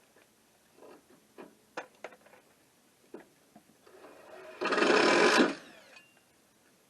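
Small electric motor whirring for about a second, preceded by a few light clicks and knocks.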